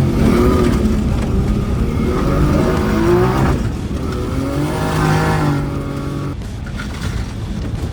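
Car engine revving hard under acceleration, its pitch climbing through the revs and dropping at gear changes about three and a half and six seconds in.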